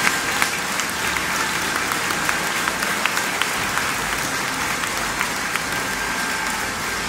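A large crowd applauding inside a church, a dense, steady patter of many hands clapping.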